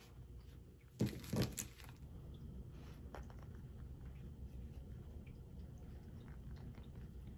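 Paper towel crinkling as it is folded and pleated by hand: two short loud crinkles about a second in, then faint rustling over a low steady hum.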